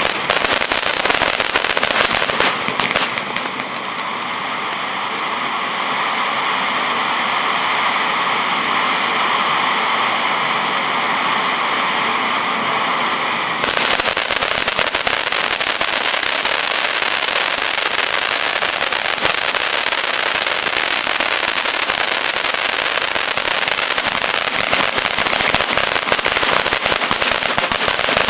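A New York Harbor fountain firework burning with dense crackling. About two and a half seconds in, it changes to a steady whistling hiss that lasts about eleven seconds, then cuts off sharply back into dense crackling.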